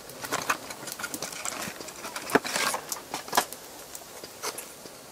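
Food preparation sounds: light clicks and taps of handling cookware and a packet of white sauce as it is poured onto the food, with two sharper knocks about two and a half and three and a half seconds in.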